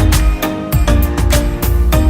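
Background music with a steady beat: drum hits about twice a second over bass and plucked guitar-like notes.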